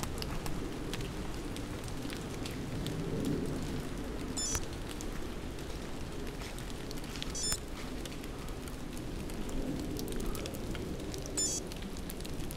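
Rain falling and dripping through a redwood forest: scattered drops tick on leaves and the forest floor over a steady low hiss.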